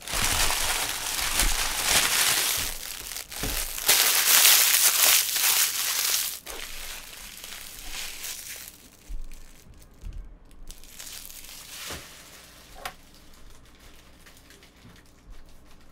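Plastic trading-card pack wrapper crinkling and tearing as it is ripped open and crumpled. A long loud spell opens it and a shorter one follows about ten seconds in, with softer rustling between.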